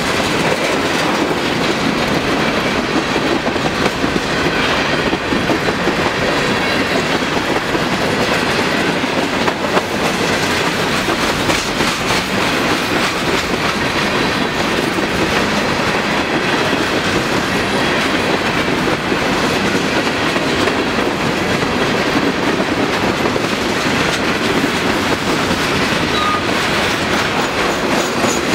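Freight cars of a long mixed manifest train rolling past close by: a steady, loud rumble of steel wheels on rail, with the clicking of wheels over the track.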